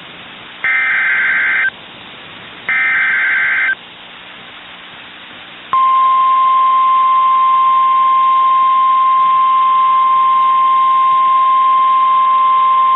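NOAA Weather Radio emergency alert. The last two of three short, loud, buzzy SAME digital-header data bursts come about a second apart. After a pause of about two seconds, the steady single-pitched 1050 Hz warning alarm tone starts and holds, signalling that a warning message is about to be read.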